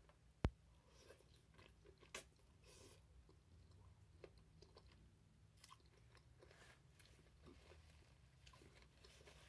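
Faint, close-miked chewing of butter-dipped lobster meat, with soft wet mouth clicks. A sharp click about half a second in and a smaller one around two seconds.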